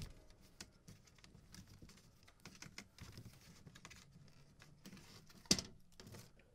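Faint scattered clicks and rustles of stored objects being handled and shifted, with one sharper knock about five and a half seconds in.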